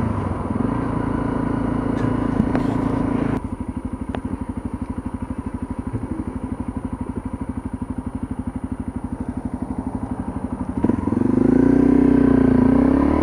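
Honda CRF250L's single-cylinder four-stroke engine: running on the road at first, dropping to an even, pulsing idle about three seconds in as the bike stops at the stop sign, then revving up again near the end as it pulls away.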